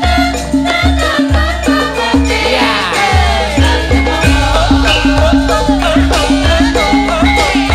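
Javanese gamelan music: a steady drum beat and a repeating metallophone-like note under a woman's sung melody.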